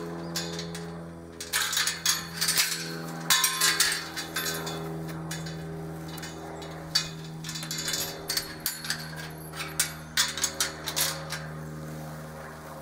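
A metal pipe-panel gate clanking and rattling in irregular bursts of sharp metallic knocks as it is handled, opened and closed, over a steady low hum.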